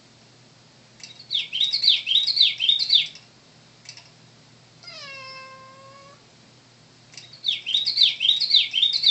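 Toy bird alarm clock chirping in two bursts of rapid repeated birdsong, each about two seconds long. Between the bursts a cat gives one drawn-out meow, quieter than the chirping.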